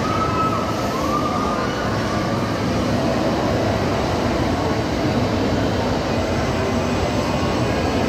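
Loud, steady din of an indoor amusement park with a spinning disc ride running, with two brief high held tones in the first two seconds.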